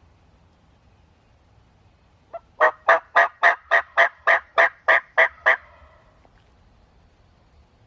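Turkey yelping: a run of about eleven loud, evenly spaced yelps, roughly four a second, lasting about three seconds.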